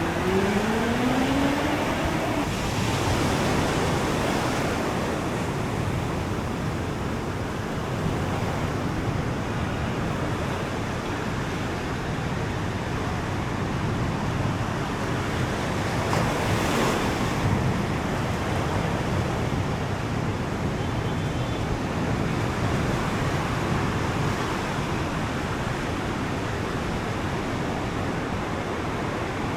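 Ocean surf washing steadily onto a sandy beach, with some wind on the microphone. In the first couple of seconds a motor's pitch rises briefly.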